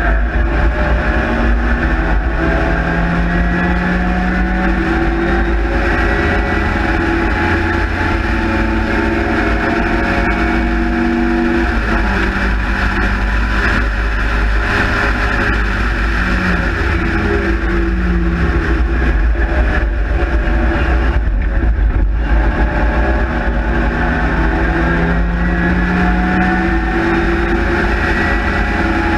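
Race-prepared Sprite/Midget engine at full racing effort, heard onboard over heavy wind rumble from the open cockpit. Its pitch climbs repeatedly as it pulls through the gears, with a brief lift off the throttle around halfway and another about three quarters of the way through.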